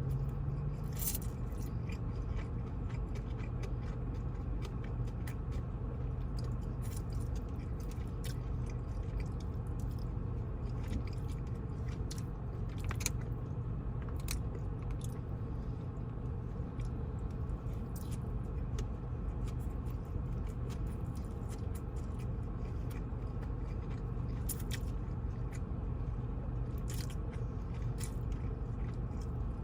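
A person chewing takeout Chinese food close to the microphone, with scattered crisp clicks of bites and crunching, over a steady low hum.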